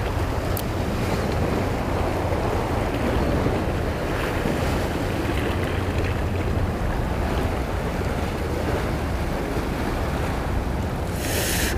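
Sea waves washing against shore rocks, with wind rumbling on the microphone. A short, louder hiss comes near the end.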